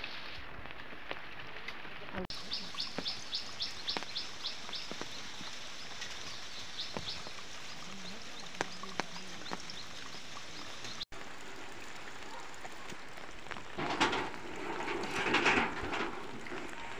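Steady rain falling, with a bird calling in a quick run of short high chirps a couple of seconds in, and a louder burst of noise near the end.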